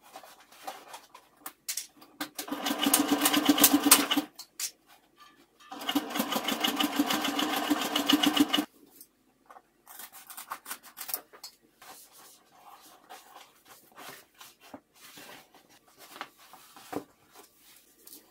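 Electric sewing machine stitching a seam through layers of bag fabric in two runs of about two and three seconds, a fast, even stitching chatter. After it stops come quieter scattered snips and rustles as scissors trim the fabric.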